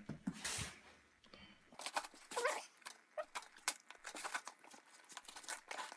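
A cardboard shipping box being handled and opened: faint, scattered taps, scrapes and crinkles of cardboard and packing tape.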